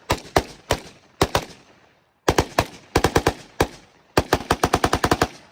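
Gunfire: several spaced shots, then quick strings of rapid fire, ending in a fast run of about eight shots a second that stops near the end.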